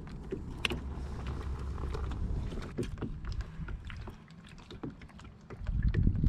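Wind rumbling on the microphone, easing off about four seconds in and picking up again near the end, with scattered small clicks and knocks throughout.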